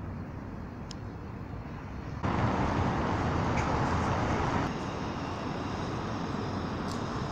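Outdoor street ambience: a steady wash of traffic noise that suddenly gets louder and fuller about two seconds in, then eases back slightly a couple of seconds later.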